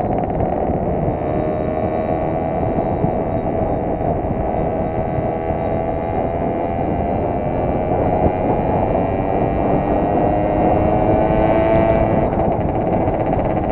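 Simson S60 moped's two-stroke single-cylinder engine running under way, its note rising slowly as it gathers speed and falling back near the end, half buried in heavy wind noise on a helmet-mounted microphone.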